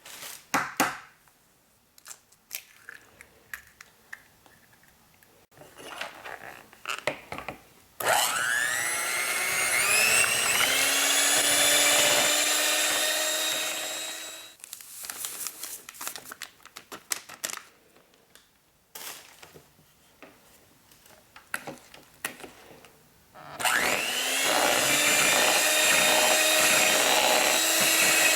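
A small electric kitchen motor, most likely a hand mixer, spins up with a rising whine and then runs at a steady pitch. It does this twice: for about six seconds starting about eight seconds in, and again starting about twenty-three seconds in. Between the two runs come scattered light clicks and knocks.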